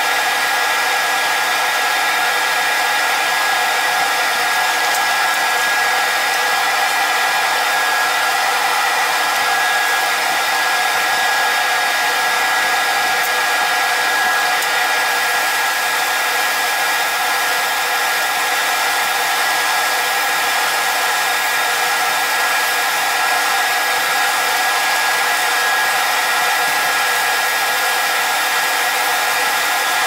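Steady, even whir of a wood lathe running with the turned handle spinning, with a steady high tone over it.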